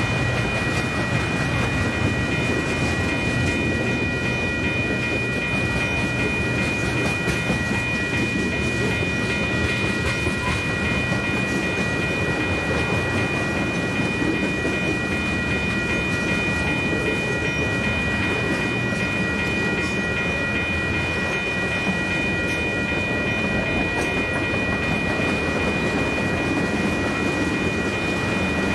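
Train rolling past on the rails: a steady rumble and rattle of railroad cars, with a constant high-pitched ringing tone over it.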